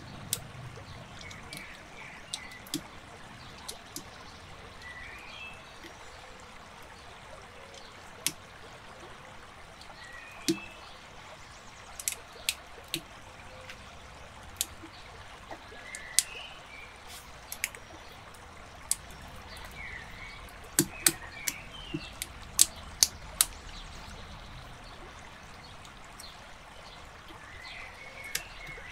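Plastic building bricks clicking and knocking as they are handled and pressed together: irregular sharp clicks, some spaced seconds apart and a quick run of them about three quarters of the way through, over a steady hiss.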